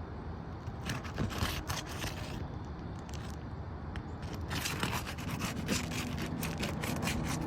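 Rough scraping and rubbing on roof shingles during a shingle repair, in two bouts of short strokes over a steady low hum.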